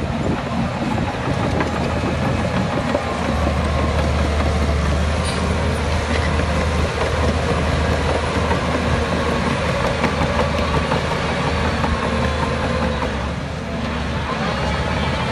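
Heavy diesel engine of earthmoving machinery running steadily, a deep drone with mechanical clatter over it, easing briefly near the end.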